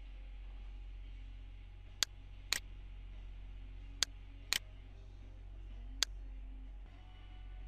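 Computer mouse clicks, sharp and short: a pair about two seconds in, another pair about four seconds in, and a single click near six seconds, over a steady low hum.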